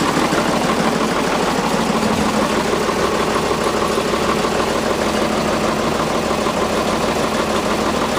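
A loader's engine running steadily while it pulls on a chain hooked to a milling machine's knee.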